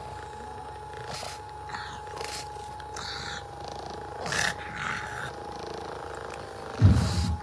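A percussion massage gun running with a steady hum while its head is pressed against a pug's face, with short sounds from the pug over it. A loud low thump comes near the end.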